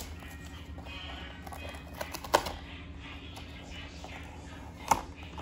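A small cardboard blind box being opened and handled on a table: a few sharp taps and clicks, the loudest about two seconds in and another near the end, over a faint steady background.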